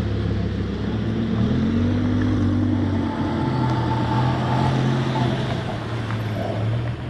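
Car engine running with a steady low drone, its pitch rising and falling slightly and then settling at a new pitch about halfway through.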